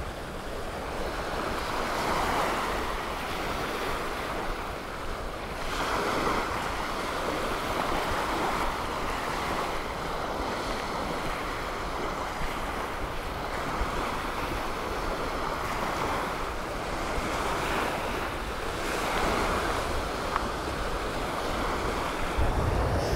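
Surf washing onto a beach, swelling and easing every few seconds, with wind on the microphone; a burst of low wind rumble near the end.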